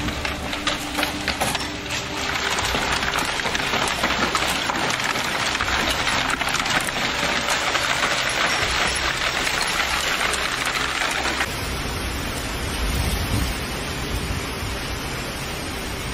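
Hail and rain falling hard, a dense patter of many small impacts. About eleven seconds in it cuts to wind-driven rain, with gusts buffeting the microphone.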